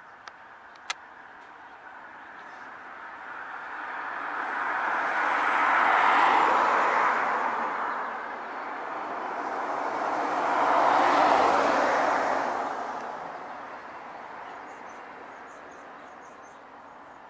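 Two vehicles pass one after the other, each a swelling and fading rush of tyre and engine noise. The first is loudest about six seconds in and the second about eleven seconds in. A couple of sharp clicks come in the first second.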